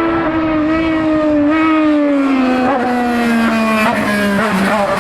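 Race car engine running hard at high revs during a hillclimb run, its pitch holding steady and then falling gradually over a few seconds, with a few brief wobbles, before levelling off near the end.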